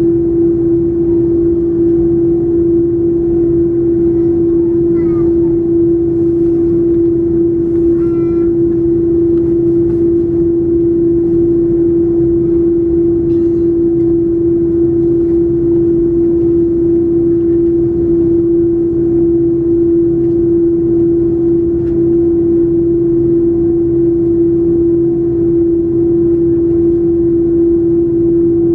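Cabin noise of an Airbus A330-300 on the ground before takeoff, its General Electric CF6-80E1 engines at idle: a loud, steady hum of one low pitch over a rumble.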